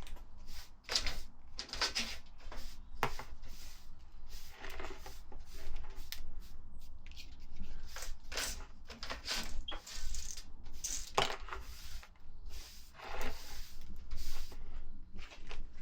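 Irregular scraping, rubbing and knocking sounds of objects being handled, over a low steady hum.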